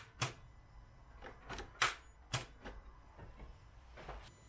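Starter solenoid on a 1.6 diesel Ford Focus clicking as the key is turned: a handful of sharp, irregularly spaced clicks, a few louder than the rest, with no cranking. The starter motor itself does nothing at all, the no-start fault being traced through the starter circuit.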